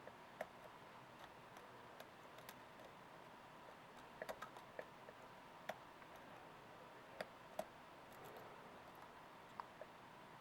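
Faint, irregular clicks and ticks of a lock pick and tension wrench working the pin stacks of a small format interchangeable core lock, about a dozen in all, a few bunched together in the middle, over a faint steady tone.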